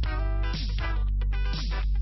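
Background music: a steady bass under pitched notes, with a phrase that repeats about once a second.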